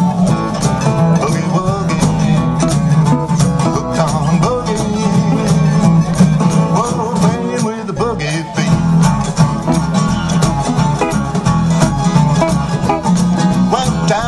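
Instrumental break in an acoustic country boogie song. Two acoustic guitars strum a steady rhythm with percussion, and a picked lead guitar line wavers in pitch over the top.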